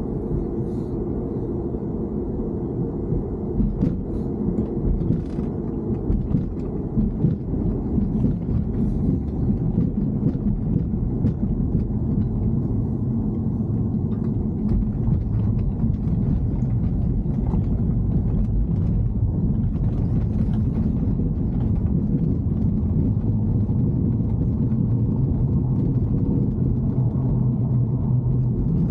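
BMW E90 3 Series on the move: a steady low rumble with scattered clicks and knocks through the middle stretch, and a steadier low hum toward the end. The car has an abnormal noise that is being recorded.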